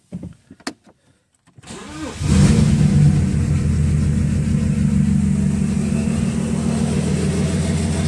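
BMW 335d's M57 three-litre straight-six diesel cranking briefly and catching about two seconds in, after a few small clicks, then idling loud and steady. It runs rough with a misfire: a relative compression test on this engine shows one cylinder with no compression.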